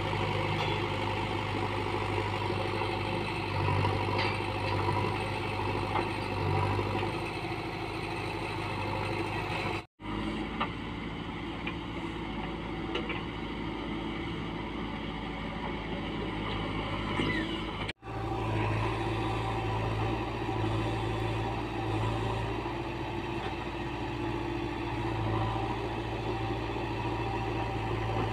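JCB 3DX backhoe loader's diesel engine running steadily as the backhoe digs and loads soil, its note swelling now and then under hydraulic load. The sound drops out very briefly twice.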